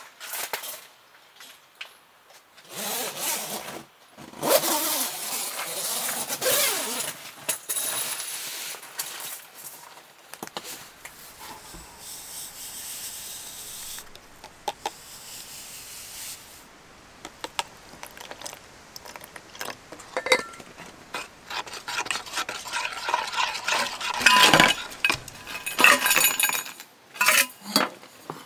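Rustling, then instant coffee powder poured from a stick packet into a stainless steel mug with a soft steady hiss. In the second half come many sharp clinks of ice cubes and metal against the steel cup, some ringing briefly.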